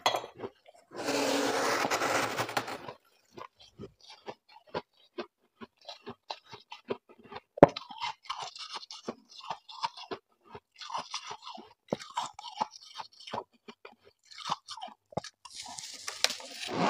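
Freezer frost scraped off the inside walls of a chest freezer by a gloved hand for about two seconds, then a long run of crisp crunches from powdery frost being chewed, with a louder crunchy bite near the end.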